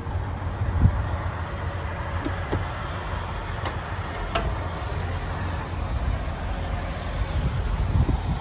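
Steady low rumble of a diesel semi truck idling, with a single thump about a second in and a couple of faint clicks later.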